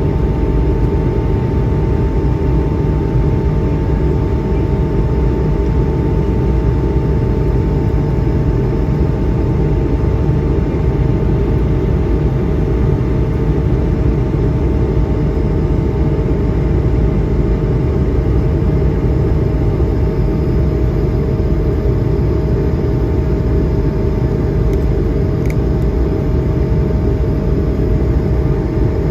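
Steady cabin drone of an Airbus A220-100, its Pratt & Whitney PW1500G geared turbofans running at constant power. A deep rumble and airflow noise carry two steady engine tones, unchanging throughout.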